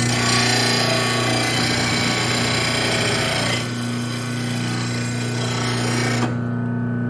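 VEVOR 2/3 HP electric lawn mower blade sharpener grinding a steel mower blade: a harsh grinding hiss over the motor's steady hum. The grinding eases a little about three and a half seconds in and stops about a second before the end, leaving the motor running on its own.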